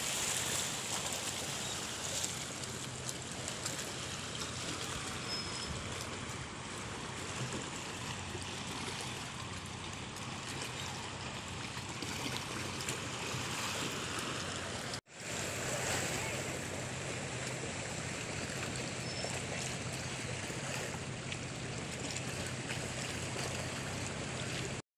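Calm sea washing gently against a rocky shore, heard as a steady hiss of water with some wind noise. The sound cuts out for a moment about two-thirds of the way through, then carries on.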